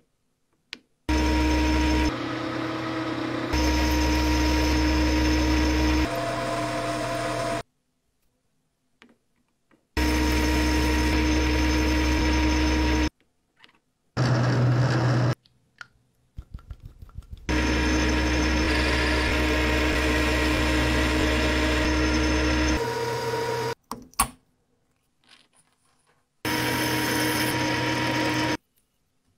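Metal lathe running in a series of short stretches, a steady motor hum with cutting noise as it turns and then drills a metal workpiece. Each stretch starts and cuts off abruptly, with silent gaps between, five in all.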